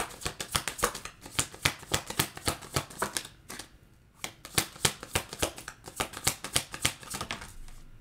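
Tarot cards being shuffled by hand: a rapid run of card flicks, with a brief pause about three and a half seconds in.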